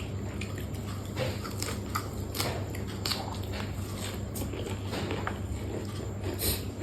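A person chewing and biting food close to the microphone, with many short, irregular wet mouth clicks and smacks over a steady low hum.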